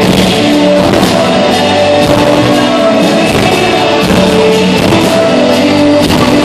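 Synth-pop band playing live at full volume: sustained keyboard and guitar notes over a steady drum beat.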